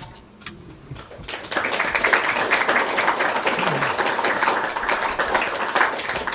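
Audience applauding, a dense patter of many hands that starts about a second and a half in and dies away near the end.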